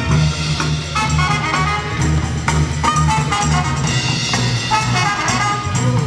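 Loud music with brass horn lines over a steady, pulsing bass beat.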